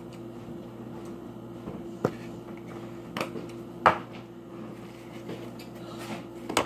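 A few sharp knocks and clicks from objects being handled, the loudest about four seconds in, over a steady low hum.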